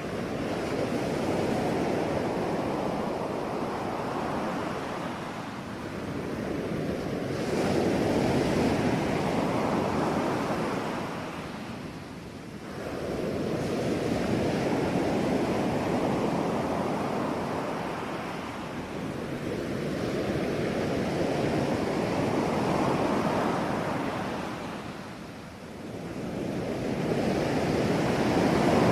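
Ocean surf: waves rolling in and breaking in slow surges about every six to seven seconds, each swelling up and then fading as it washes back.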